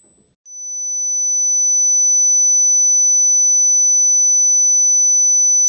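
A pure 8,000 Hz hearing-test sine tone fades out, and about half a second in a pure 6,000 Hz test tone fades in and then holds steady: the tones of an age-graded hearing test, the 6,000 Hz one being the threshold below which a hearing check is advised.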